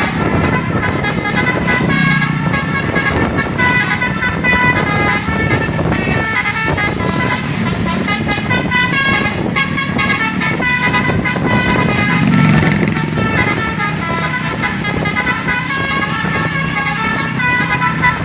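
Telolet 'basuri' multi-tone bus horn playing a tune of quick stepped notes, over the bus's engine running.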